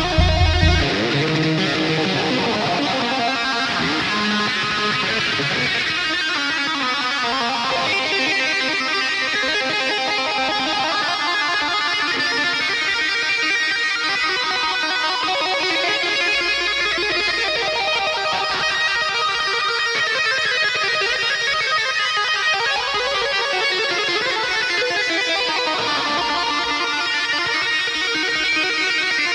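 Experimental music made of many quick, overlapping pitched notes; a heavy low bass part stops about a second in.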